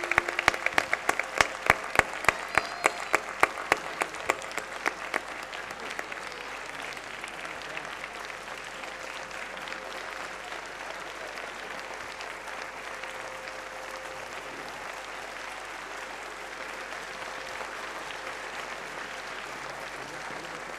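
A theatre audience applauding. For the first five seconds or so they clap together in a steady beat of about three claps a second, then it loosens into ordinary continuous applause.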